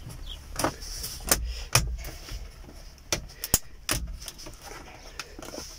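Plastic trim cover being pressed and snapped into place around a car stereo head unit: several sharp clicks and taps, irregularly spaced.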